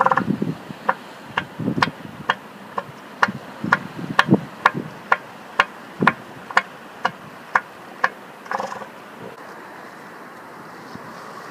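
Northern elephant seal bull giving its rhythmic clap-threat call: sharp, evenly spaced pulses, about two a second for some seven seconds. A short pitched seal call comes right at the start and again near the end.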